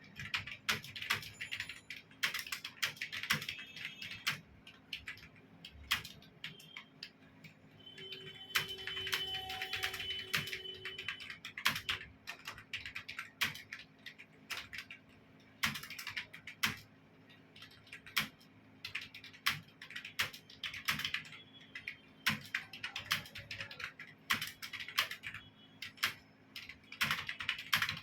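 Computer keyboard being typed on fast and continuously, rapid key clicks in bursts with short pauses between words and phrases.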